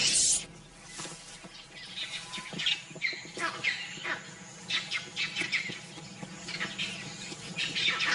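Music cuts off just after the start, leaving short, high chirping calls from wild animals, repeated at irregular intervals, some sweeping down in pitch.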